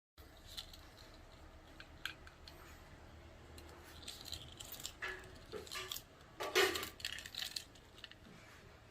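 Light handling noises: scattered clicks, taps and a small clatter of hard plastic or metal parts, busiest in the second half with the loudest rattle about six and a half seconds in.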